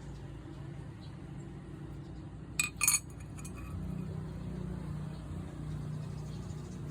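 Two quick, sharp metallic clinks close together, over a steady low hum.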